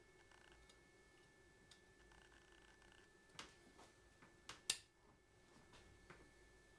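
A few scattered light clicks and taps of hand tools and metal engine parts being handled, over near silence; the sharpest click comes about two-thirds of the way in.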